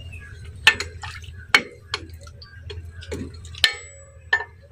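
Steel chain links clinking against a tractor's front tow hook and bumper, about half a dozen separate metallic clinks, some ringing briefly, over a low steady engine hum.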